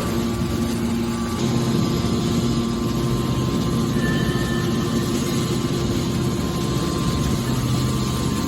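Hydraulic baler machine running with a steady mechanical hum.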